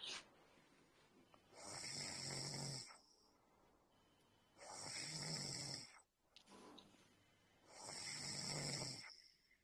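Soft snoring in a slow, even rhythm: three long snores about three seconds apart, each lasting over a second, with a fainter breath between the second and third.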